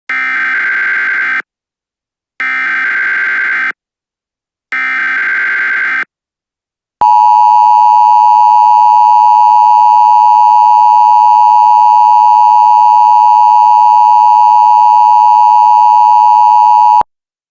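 Emergency Alert System header: three short bursts of buzzy data tones, each about a second and a half long, then the loud two-tone EAS attention signal held steady for about ten seconds and cut off suddenly. Together they signal the start of an emergency alert message.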